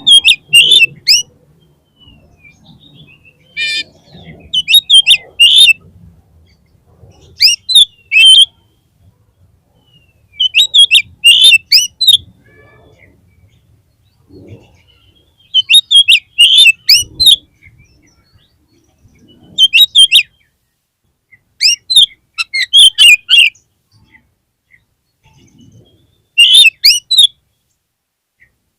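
Oriental magpie-robin singing in short, loud phrases of sharp, high chirps and whistles, about eight phrases a couple of seconds apart, with one harsh buzzy note a little before four seconds in.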